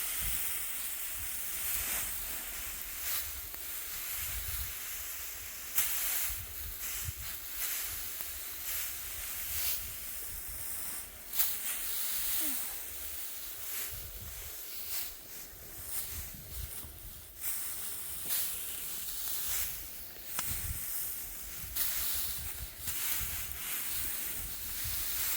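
Dry wheat stalks rustling and swishing as they are cut and gathered by hand, a string of short crackling rustles over a steady hiss. Wind buffets the microphone with a low, uneven rumble.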